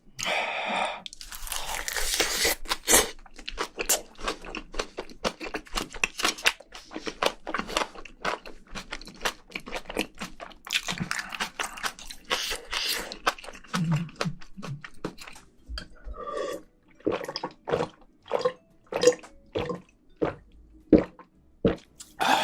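Close-up chewing and crunching of a mouthful of spicy braised seafood, with wet mouth clicks and smacks; the crunching is dense at first and breaks into separate, spaced smacks in the last few seconds.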